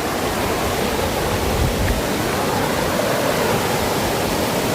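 Waterfall on a river rushing: a steady, loud noise of falling water.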